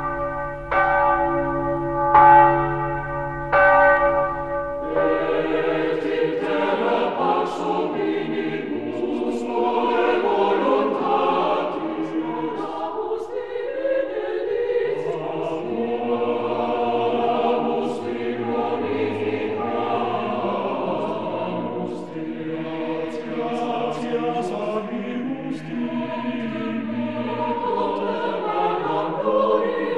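Church bells ringing, struck about once a second, for the first few seconds, then a choir singing.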